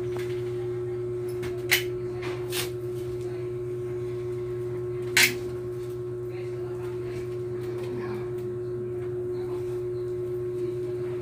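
Manual caulking gun clicking a few times as it is squeezed to lay sealant along a window frame. The loudest click comes about five seconds in, over a steady low hum.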